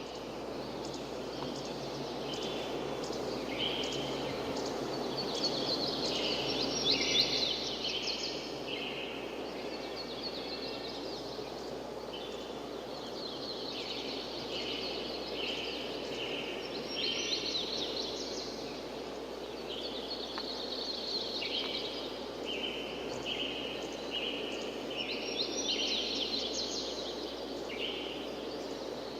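Several songbirds singing and calling over and over, with short repeated notes and quick trills, above a steady rushing background noise.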